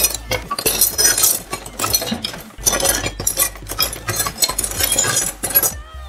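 Plastic toy pots, lids and dishes clattering and clinking as they are handled and set down on a tabletop, a dense run of quick knocks that stops shortly before the end.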